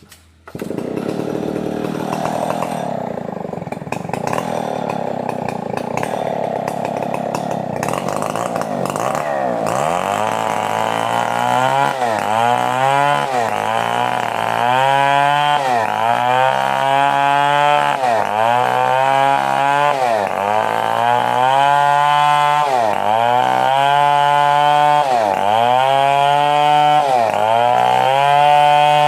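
Stihl 070 two-stroke chainsaw comes on abruptly about half a second in and runs loud and steady. From about ten seconds its pitch repeatedly dips and recovers, about once every second and a half, as the engine is loaded and eases.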